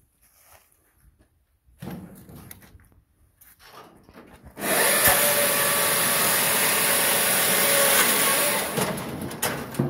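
Scheitfix 25 firewood saw cutting through a log: loud sawing starts suddenly about halfway through, runs steadily with a steady tone in it for about four seconds, and tails off near the end as the cut finishes.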